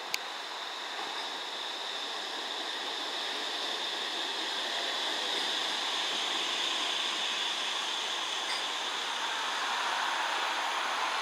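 Metrolink M5000 tram pulling in alongside a platform on wet track: a steady hiss of wheels on rail with a thin high whine, slowly growing louder as it comes close. A single sharp click at the very start.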